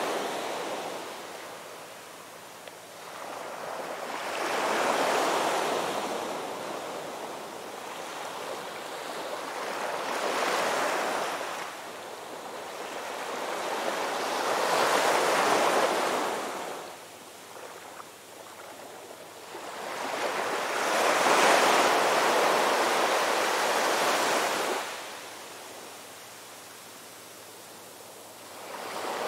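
Ocean surf: waves breaking and washing up the shore. The sound swells and fades four times, about every five seconds, and the wash is quieter over the last few seconds.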